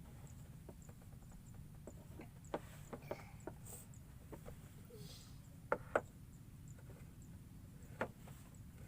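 Scattered light knocks and clicks over a faint low rumble, loudest in a pair about six seconds in and once more near the end.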